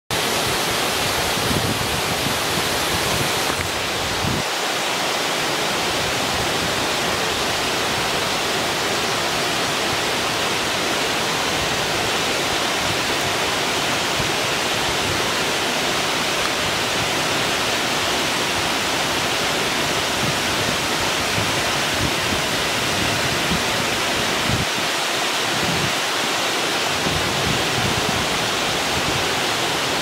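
A tall mountain waterfall pouring down a rock face: a steady, full rush of falling water, with a slight shift in its sound about four seconds in.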